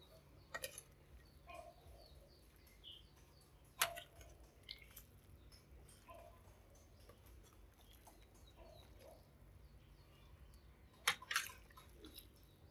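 Quiet scooping of soup with a metal ladle from a stainless steel pot into a bowl, with a few sharp clinks of the ladle against the pot or bowl: one about half a second in, a louder one about 4 seconds in, and two close together near the end.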